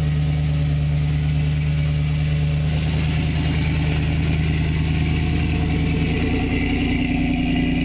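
1976 Ford Bronco's engine running at low, steady revs while crawling over rock, with the revs rising slightly near the end.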